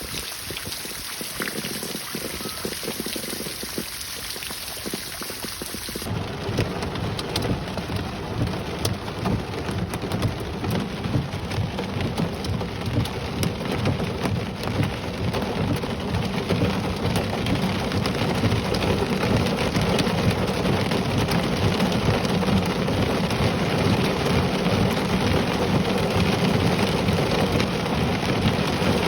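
Heavy rain falling in a thunderstorm, with thunder rumbling. About six seconds in the sound changes abruptly to a fuller, deeper downpour with a steady low rumble that slowly grows louder.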